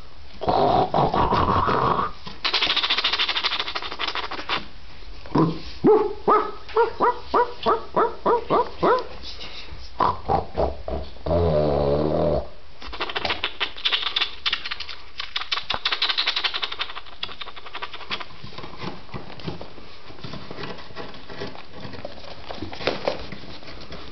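Young Rhodesian Ridgeback puppies at play: a rising whine, then a quick run of about ten short yips, and a longer growl near the middle, with scuffling on the bedding between them. The calls die down in the last third.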